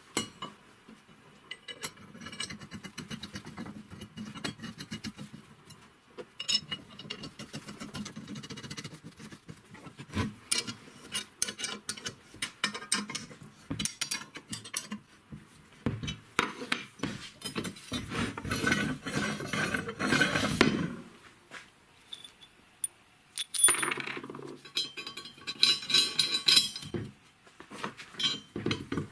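Steel parts of a homemade bender, built from an old wheel bearing, clinking and scraping as plates, bolts and nuts are fitted and tightened with a wrench. There are many separate metallic clicks and knocks, with a longer stretch of rapid scraping clicks around the middle and another cluster near the end.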